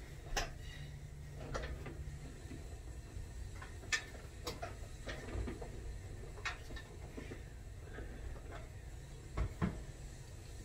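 Scattered clicks and knocks from a Bowflex Blaze home gym being handled: its cable handles and bench knocking against the frame as the handles are taken up, with two heavier knocks near the end.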